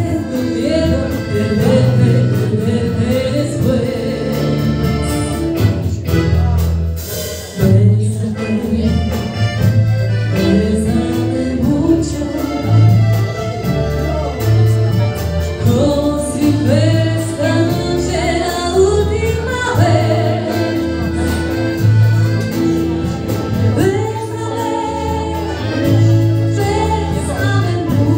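Song with several voices singing over instrumental backing that has a steady bass beat.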